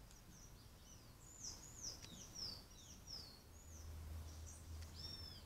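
Faint, high, down-slurred chirps from a small bird, repeated about twice a second for a few seconds, then one longer arched whistle near the end.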